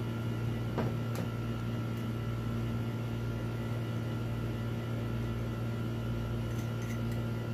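Steady low electrical hum, with a few faint clicks of small metal parts as a copper link strip is fitted onto the heater element's terminal studs.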